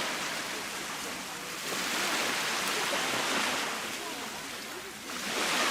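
Baltic Sea waves breaking and washing on the shore: a steady rush of surf that swells about two seconds in and again near the end.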